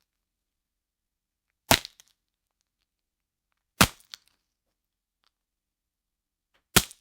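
Bone-breaking sound effect: three sharp cracks, each with a short crunching tail, spaced two to three seconds apart.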